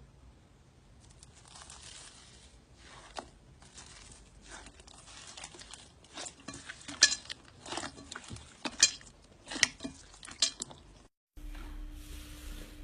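Slime being squeezed and poked: faint crackling, then from about six seconds in a run of sharp clicking pops.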